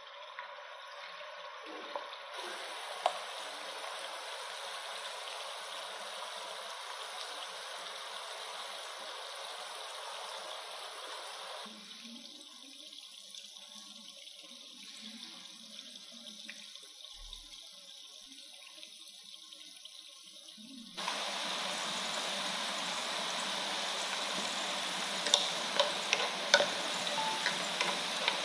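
Potato balls deep-frying in hot oil: a steady sizzling, bubbling hiss that drops after about twelve seconds and turns louder after about twenty-one. A few light clicks near the end come from chopsticks turning the balls in the pan.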